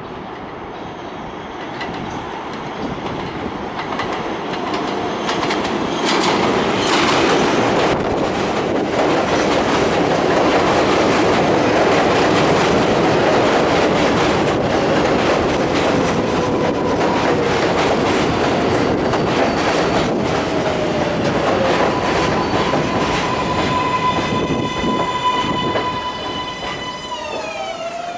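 R142A subway train pulling into a station and braking to a stop. The rail noise grows louder, with a run of wheel clacks about six to eight seconds in. As it slows there is a falling whine, then a steady high whine with overtones that drops in pitch just as the train halts.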